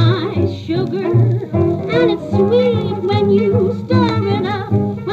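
Small swing jazz band playing an instrumental passage: a horn carries a bending, gliding melody over piano and string bass, from a 1935 recording issued on a 78 rpm disc.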